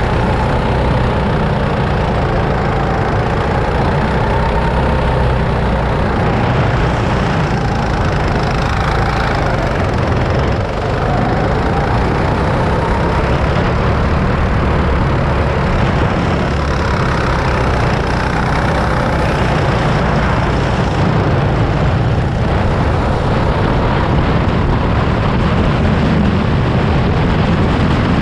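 Go-kart's small engine running under throttle, heard onboard, its pitch rising and falling as it speeds up and slows.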